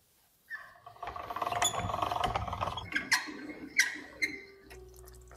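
Food-prep handling noises: a dense crackling rustle for about two seconds, then a few sharp clicks, with a low steady hum setting in near the end.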